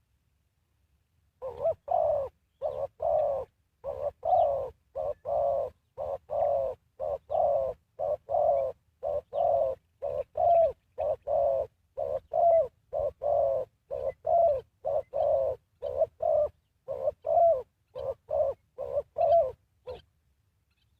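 Spotted dove cooing: a long series of short, low coos in quick runs of two or three, starting about a second and a half in and stopping shortly before the end.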